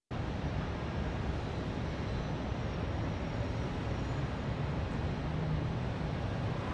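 Steady urban night ambience: a low, even rumble of traffic.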